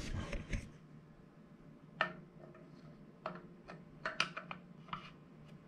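Metal clinks and knocks as a distributor is worked down into a Dodge R5P7 V8: a quick cluster of clicks at the start, then a few single knocks a second or so apart. A faint low hum runs steadily underneath.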